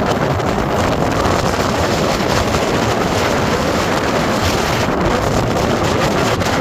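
Strong blizzard wind blowing hard across the microphone, a loud, steady rush of noise.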